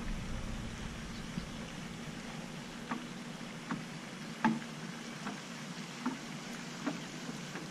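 Soft clicks and taps, about one a second, from hands working a lure's hook out of a bass's mouth, over a steady faint hiss.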